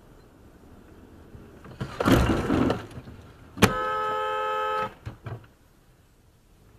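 A car horn sounding one steady blast of about a second, a warning honk at a car pulling out in front. Before it, about two seconds in, comes a loud noisy burst lasting about a second.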